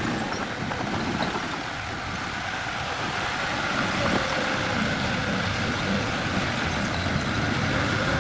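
A heavy vehicle's engine running steadily, slowly getting louder.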